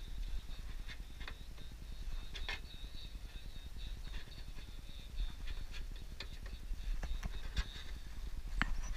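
Irregular small metallic clicks and taps of hand pliers working the edge of an aluminium roofing sheet, with the sharpest click a little before the end, over a low rumble of wind on the microphone.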